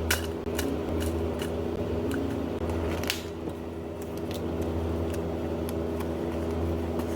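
Small clicks, taps and handling noises of cafe counter work, scattered irregularly with a louder one about three seconds in, over a steady low machine hum.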